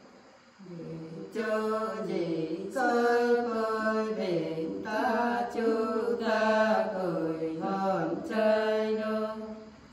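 Unaccompanied women singing a Nùng folk song in a slow, chant-like line of long held notes that slide between pitches. The singing starts about half a second in and stops just before the end.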